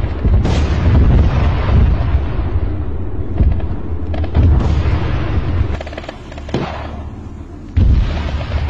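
Gunfire and explosions over a heavy low rumble: several sharp bangs, then a loud blast about eight seconds in.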